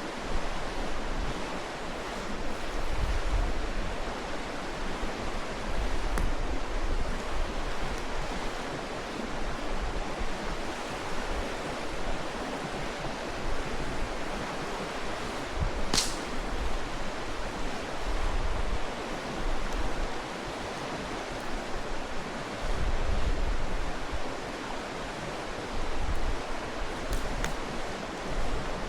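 Mountain stream rushing steadily. About halfway through, a single sharp pop from the burning wood of the campfire.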